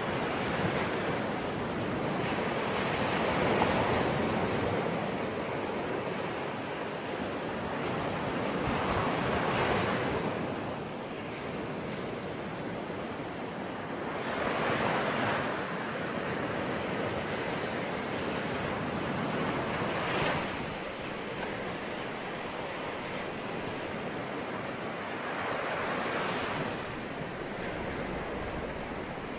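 Ocean waves breaking on a shore: a continuous wash of surf that swells every five or six seconds as each wave breaks, then draws back.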